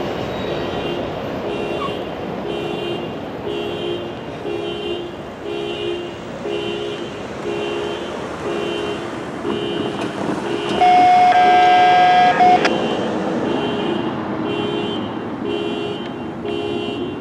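Railroad crossing bell ringing in an even pattern about twice a second while the gates rise after the train has cleared. About eleven seconds in, a vehicle horn sounds one steady note for nearly two seconds, louder than the bell.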